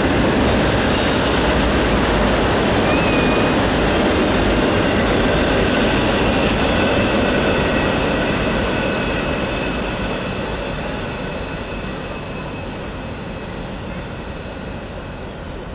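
Freight train of autorack cars rolling past, steel wheels running on the rails with a thin high wheel squeal. The sound fades gradually from about halfway through as the last cars pull away around the curve.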